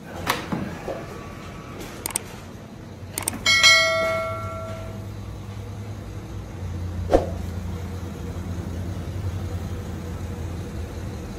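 A few knocks, then a single bell-like ringing tone that fades out over about a second and a half. A steady low hum sets in about halfway through.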